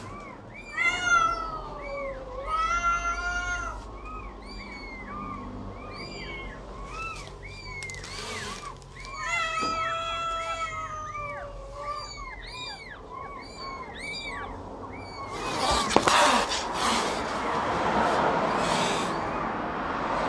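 Black cat meowing loudly: several long calls that fall in pitch, with many short, high chirping calls repeating about twice a second in between. Near the end a rushing noise with one sharp click takes over.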